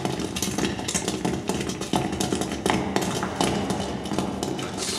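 Film Foley track of marching troops: many footsteps mixed with the rattle and clack of stormtrooper armour moving, a dense, continuous clatter of short knocks and clicks.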